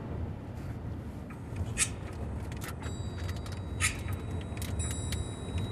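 Steady low rumble of a car cabin at highway speed, tyre and engine noise, with a few short faint clicks and a thin high ringing tone in the middle.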